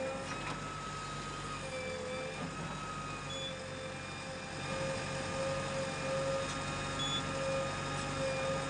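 A JCB 3DX backhoe loader's diesel engine running steadily under work, with a steady whine over it. The engine gets a little louder about halfway through.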